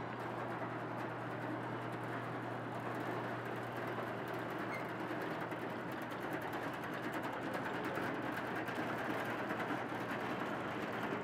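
1935 George White & Sons threshing machine running slowly on an electric motor, well below its working speed: a steady mechanical clatter from its belts, pulleys, chains and conveyor, with a fast fine ticking over a low steady hum.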